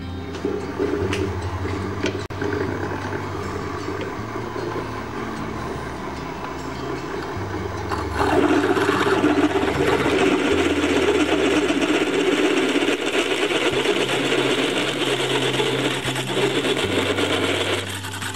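Milling machine running, its milling cutter boring into steel plate to mill out a broken drill tip, with a harsh grinding cut over a steady motor hum. The cutting grows louder and harsher about eight seconds in and eases off near the end.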